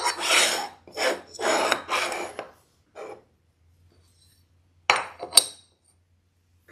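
Marker pen rubbing in short scratchy strokes on aluminum angle, four strokes in the first two and a half seconds. About five seconds in come two sharp knocks as a small steel spacer block is set against the steel block.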